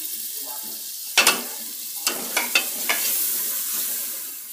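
Chopped tomatoes sizzling hard in hot oil and fried spice paste in a pressure cooker on a gas stove, being stirred, with a few sharp clacks of the stirring utensil against the pot about a second in and again between two and three seconds in.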